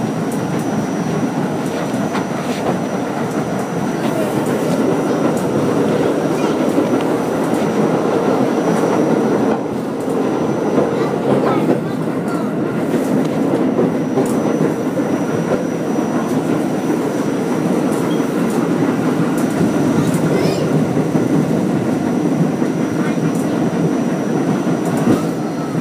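Staten Island Railway R44 subway car running between stations, heard from inside the car: a steady, loud rumble of wheels on rails with scattered clicks. A thin high whine runs over it and drops out for a few seconds near the middle.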